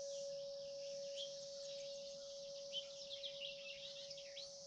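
A large hanging cylinder wind chime rings on in one long, steady tone that slowly fades, while birds chirp in many quick, short calls that are busiest in the second half.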